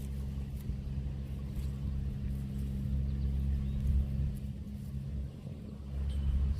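A steady low motor hum with a low rumble underneath.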